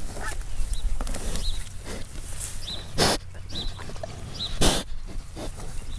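Pigs grazing on pasture, tearing and chewing grass and clover with their snouts, with two short loud snorts, about three seconds in and again near five seconds.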